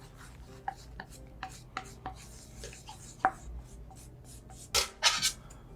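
A series of irregular short taps and clicks over a faint steady low hum, with two louder scraping bursts about five seconds in.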